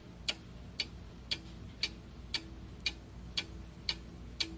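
Clock-ticking sound effect counting down a guessing timer: sharp even ticks, about two a second, over a faint low hum.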